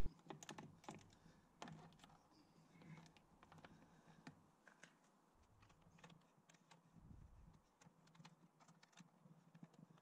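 Faint, irregular light clicks and ticks of a hex key working the airbox bolts.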